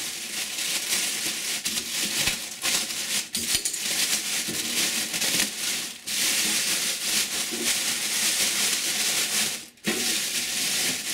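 Thin clear plastic bag rustling and crinkling as it is handled and pulled off a welder, with a brief pause near the end.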